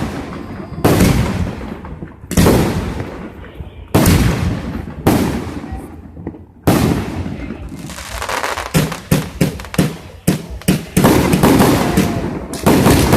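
Fireworks going off: a series of loud booms, each trailing off, about every one and a half seconds, then a fast run of crackling bangs through the second half.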